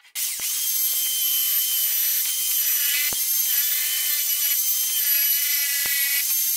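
Corded electric drill running at full speed, turning a flexible shaft with a flap-wheel sander that sands the inside of a wooden bowl. It switches on about a quarter second in and runs as a steady high whine, with a few sharp ticks along the way.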